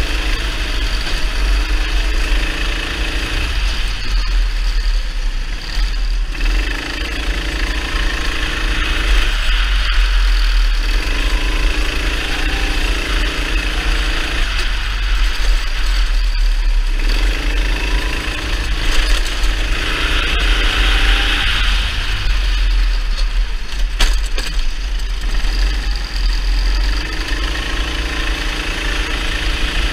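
Kart engine heard from on board, surging and easing off again and again as the throttle is opened on the straights and lifted for the corners, over a constant low rumble from the moving kart.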